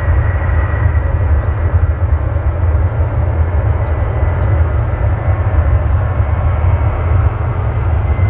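Boeing 737-800's CFM56-7B turbofan engines running as the airliner moves along the runway: a steady heavy rumble with a thin, even high whine on top.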